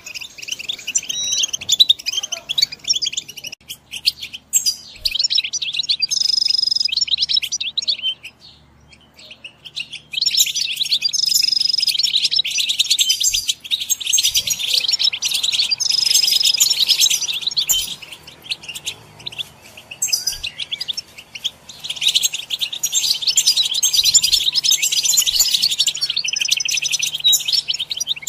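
European goldfinch song: long phrases of fast, liquid twittering with a few short held whistled notes, broken by brief pauses.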